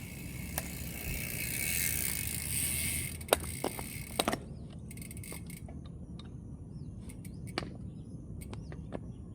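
Bicycle rear-hub freewheel buzzing while coasting, which stops suddenly about four seconds in after a few sharp clicks. Birds chirp now and then in the second half.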